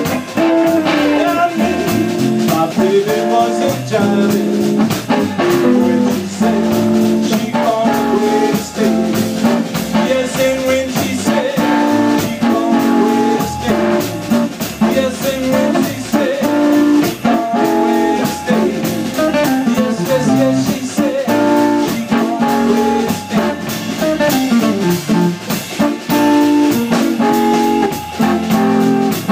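Live blues band playing: two electric guitars over an upright bass and a drum kit.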